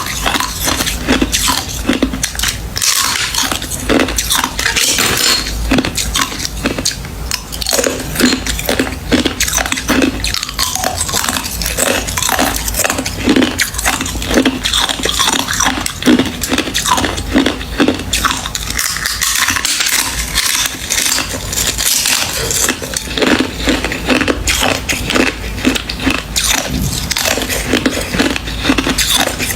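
Ice being bitten and chewed close to the microphone: dense, irregular crunching that goes on steadily, with sharp clinks among the crunches.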